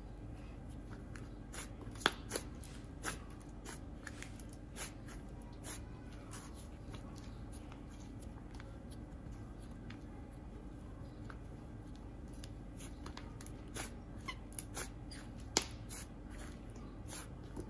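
Icing slime being stretched, folded and kneaded by hand, giving scattered soft crackles and pops, its 'sizzly' texture, with a few sharper pops about two seconds in and again near the end. A faint steady hum lies underneath.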